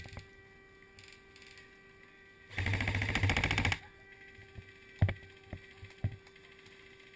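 Airsoft electric gun firing one rapid full-auto burst lasting a bit over a second, about two and a half seconds in, followed by a few single sharp cracks near the end.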